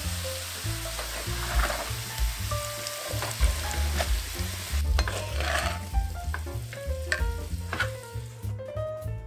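Diced potatoes sizzling in hot oil in a frying pan, stirred with a wooden spatula that scrapes through them about one and a half and five and a half seconds in, with a few light knocks against the pan. Near the end the sizzle thins out as the pan is lifted off the gas burner, over background music.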